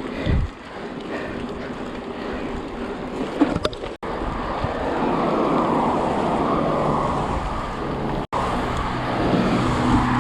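Steady rushing noise of wind and heavy rain on the camera microphone, with the sound cutting out sharply twice.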